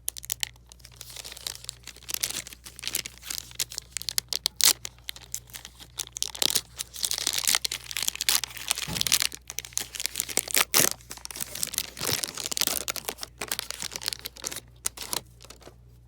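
Trading card pack wrapper being crinkled and torn open by hand: a busy, irregular crackling that stops shortly before the end.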